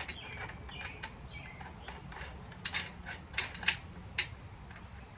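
Socket ratchet clicking in short, uneven runs while tightening the rear axle nut of a motorcycle, with a cluster of sharper metal clicks a little past the middle.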